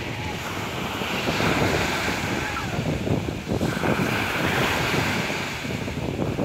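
Sea waves breaking and washing up the shore, with a bigger wave crashing a little past halfway, and wind buffeting the microphone.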